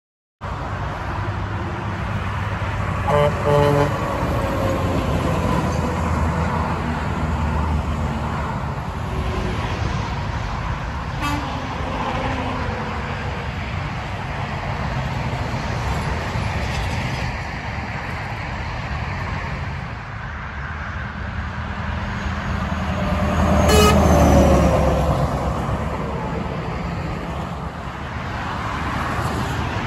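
Kenworth T680 semi truck sounding its Hadley H00293PC air horn in two short blasts a few seconds in, over diesel engine and road traffic noise. About twenty seconds later a louder vehicle passes close by, its pitch falling as it goes.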